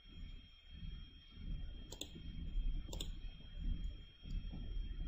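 Two computer mouse clicks about a second apart, over a low rumbling background noise.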